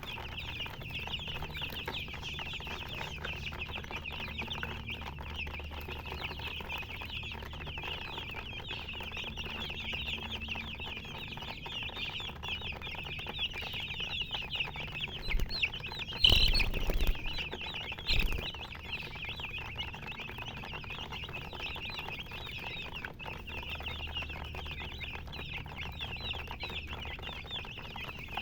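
A brood of baby chicks peeping continuously, many high little chirps overlapping. Two loud sudden bumps cut through about two-thirds of the way in, the first lasting under a second and the second shorter.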